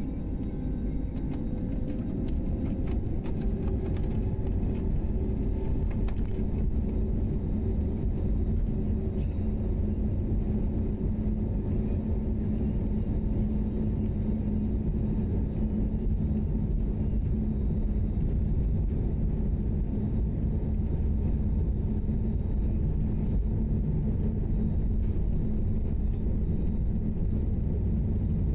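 Jet airliner's engines heard from inside the cabin: a steady low rumble, with a whine rising in pitch over the first few seconds as the engines spool up, then holding steady as the aircraft rolls along the runway.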